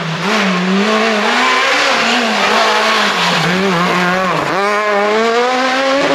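Renault Clio S1600 rally car's naturally aspirated four-cylinder engine at high revs as it passes. The engine note wavers, dips sharply about four and a half seconds in, then climbs steadily as the car accelerates away.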